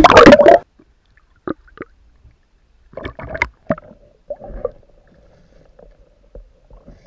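Loud splash as the camera is plunged into the river, then muffled underwater sound: a few scattered knocks and clicks and a faint steady hum.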